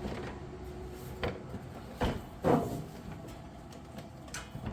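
A few scattered clicks and knocks, with a short sliding scrape about two and a half seconds in: the plastic and metal parts of a lawn tractor being handled by hand.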